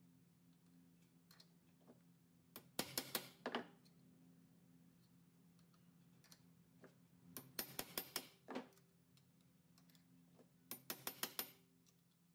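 Claw hammer tapping a small steel setting punch, setting eyelets along the edge of a knife sheath. The taps come in three quick bursts of about five sharp metal taps each, over a faint steady hum.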